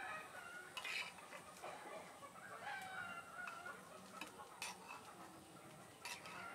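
A spoon clicking and scraping against clay pots as curd is spooned onto chicken pieces, with a few sharp clicks. Birds call repeatedly in the background.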